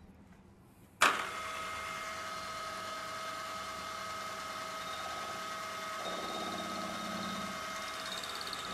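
Milling machine running with a steady whine that starts abruptly about a second in. From about six seconds in a pulsing buzz joins as the end mill meets the aluminium blank turning in the collet, milling a ball end.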